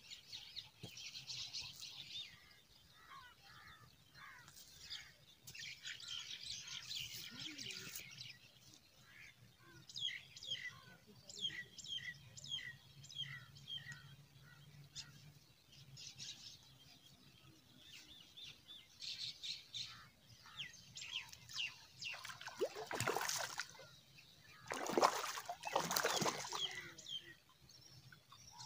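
Birds chirping in quick repeated runs of short calls through most of the clip. Near the end, two loud rushing splashes as a hooked fish thrashes at the surface while it is hauled in on a hand line.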